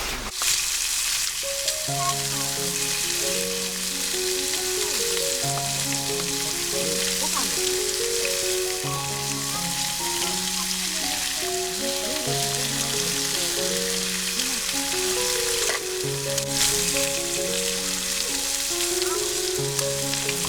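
Food frying and sizzling in a pan, a steady hiss. A light instrumental background melody comes in about two seconds in.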